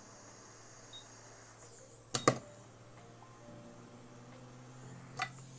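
Metal tweezers clicking sharply against the iPhone 7 logic board's metal shield, twice in quick succession about two seconds in and once more near the end, over a faint steady hum. A faint short high beep from an alarm about a second in.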